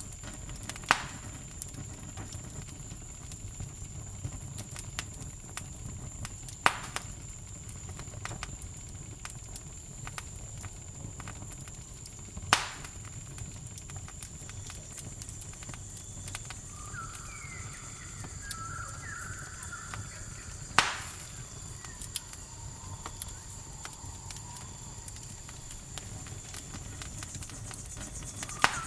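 Campfire crackling: a steady low rumble of burning wood with a sharp loud pop every several seconds, five in all. A steady high insect trill runs under it, typical of crickets, and a few short chirping calls come a little past the middle.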